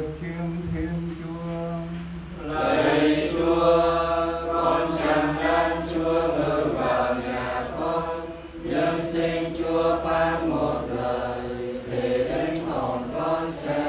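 Voices singing a slow liturgical chant during the Mass, growing fuller about two and a half seconds in.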